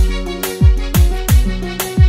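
Instrumental music with no singing: a deep kick drum whose pitch drops on each hit, about five beats in two seconds, under sustained melodic chords.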